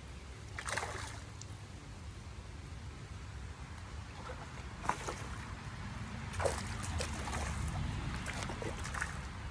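Creek water sloshing and trickling, with several short sharp splashes over a steady low rumble.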